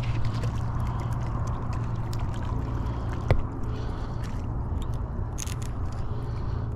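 Small clicks and scraping handling noise from hands working a Piscifun Alloy M baitcasting reel, with a sharper click about three seconds in, over a steady low rumble.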